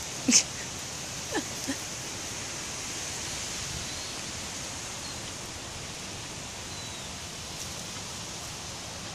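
Steady outdoor hiss with a high-pitched band, broken by one short sharp sound about a third of a second in and two smaller ones a second later. Faint small bird chirps now and then.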